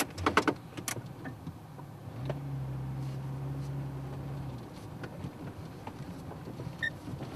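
A few clicks, then a steady low mechanical hum that lasts about two seconds before stopping.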